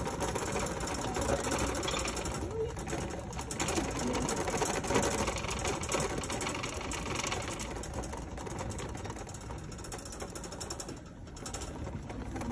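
Metal shopping cart rattling and clattering on its wheels as it is pushed along a hard store floor.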